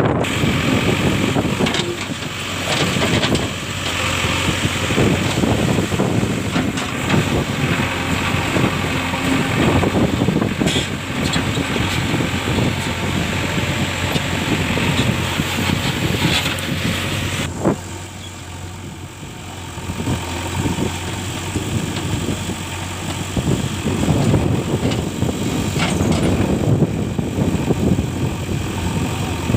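JCB 3DX backhoe loader's diesel engine running steadily while the machine works. The sound changes abruptly about two-thirds of the way through, becoming duller.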